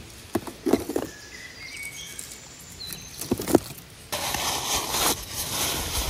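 Dry grass tinder and sticks rustling and crackling in a few short bursts as they are pushed into a teepee of firewood, with faint bird chirps between them. About four seconds in, a louder steady rustling starts, with crinkles of paper tissue being handled.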